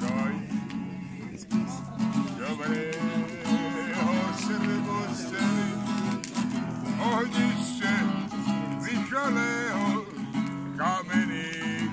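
Acoustic guitar strummed steadily, playing a song's chords.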